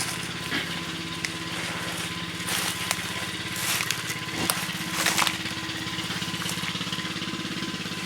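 Toads calling in a steady chorus, a fast continuous trill with a thin higher tone over it. Crackling rustles come in about two and a half seconds in and stop just after five seconds.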